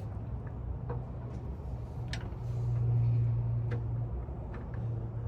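A few light metallic clicks and taps as the camshaft is eased out of the LS engine block, over a steady low hum that swells about two and a half seconds in.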